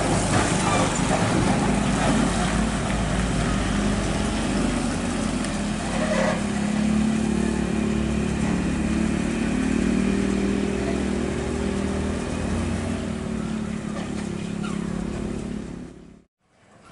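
Volvo FM truck's diesel engine pulling a lowboy trailer with a 34-ton excavator, running steadily under heavy load as it drives past. A motorcycle goes by close at the start. The sound fades out near the end.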